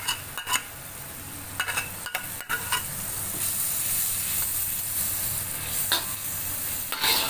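Butter melting and sizzling in a hot stainless steel wok. A metal ladle clicks and scrapes against the pan in the first three seconds, and the sizzle grows louder from about three seconds in.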